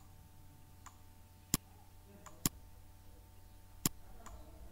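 Computer mouse clicking: three sharp clicks about a second apart, with fainter ticks between them, over a faint steady low hum.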